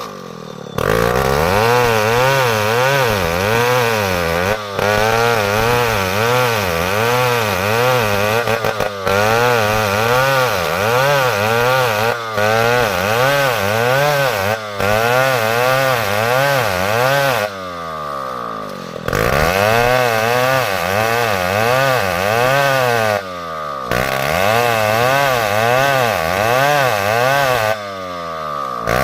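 Chainsaw cutting timber under load, its engine pitch swinging up and down about once a second. It drops off briefly several times and dips for a second or so about two-thirds of the way through before revving back up.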